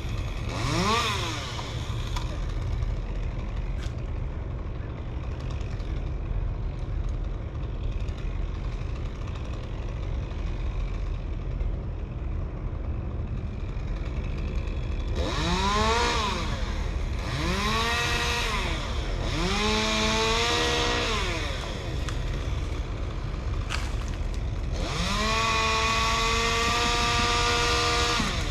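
Two-stroke chainsaw idling, revved in short bursts that rise and fall: once at the start and three times about halfway through. Near the end it is held at high revs for a few seconds.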